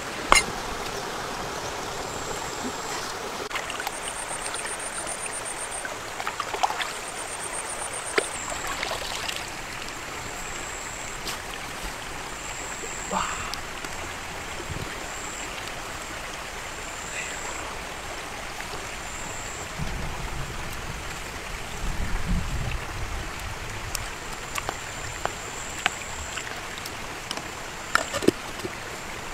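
A steady rushing noise like running water, broken by scattered knocks and clicks from cooking over a wood fire. Near the end, a clay lid knocks twice against its clay pot.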